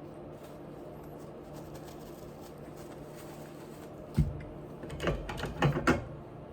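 Eating sounds: a single sharp knock about four seconds in, then a quick run of clicks and wet smacks over about a second.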